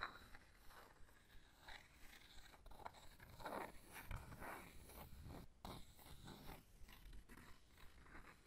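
Faint, irregular scratching and rubbing on wooden objects, in short strokes of a fraction of a second with small pauses between.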